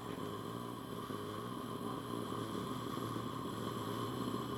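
A person's voice imitating a vehicle engine: a steady, low, buzzing drone held without a break.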